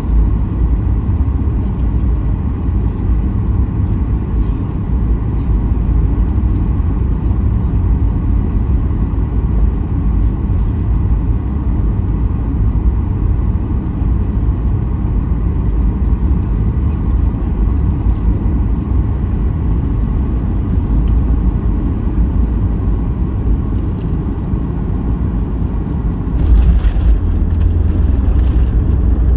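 Cabin noise inside a Boeing 737 MAX 8 near the rear of the cabin: a steady deep rumble of the CFM LEAP-1B engines and airflow. The rumble turns suddenly louder and hissier near the end.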